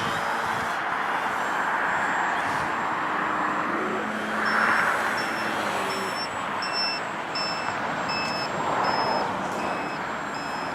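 Steady rushing noise with a run of short, high electronic beeps, about two a second, starting about halfway through.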